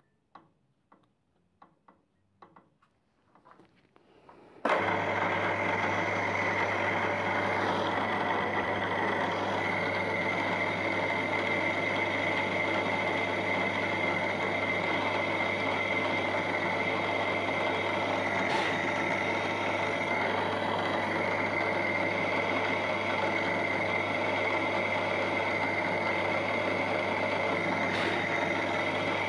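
A few light clicks as a small drill bit is fitted in the chuck, then about four and a half seconds in a milling machine's spindle motor starts and runs steadily, with a low hum and a steady high whine, while a 1.5 mm drill bores a hole in steel.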